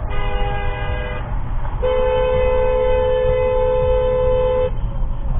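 Vehicle horn honking twice over road noise: a short blast of about a second, then after a brief gap a longer, steady blast of about three seconds.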